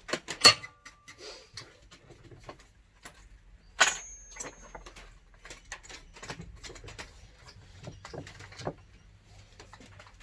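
Workbench handling noises: scattered knocks and clicks of a plywood block and tools being moved about. There is a sharp metallic clink with a brief ring about half a second in, and a louder one about four seconds in.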